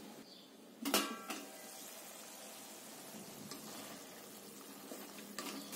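Clank and brief ring of a stainless-steel lid coming off a kadai about a second in, then a faint steady sizzle of chickpeas simmering in masala gravy, with light scraping of a wooden spatula stirring them.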